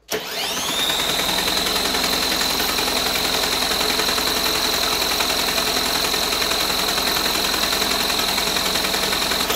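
Cordless drill-driver with a socket on the flywheel nut, spinning a small engine's crankshaft with the spark plug out and no compression: the drill spins up quickly to a steady high whine and runs evenly, then stops at the end. This is cranking for a spark test on the magneto ignition.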